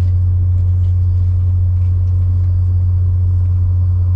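Steady low rumble of a moving train, with a few faint clicks above it.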